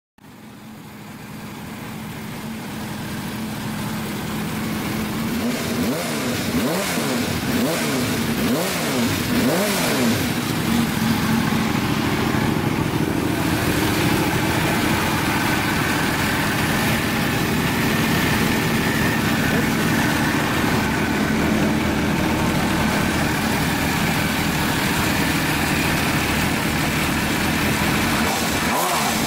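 MV Agusta F4 750 S inline-four motorcycle engine running steadily through Arrow under-seat mufflers. The sound swells in over the first few seconds.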